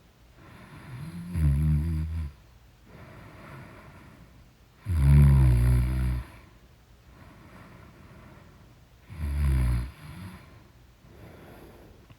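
A person snoring loudly: three deep rumbling snores about four seconds apart, the middle one the loudest and longest, with softer breathing between them.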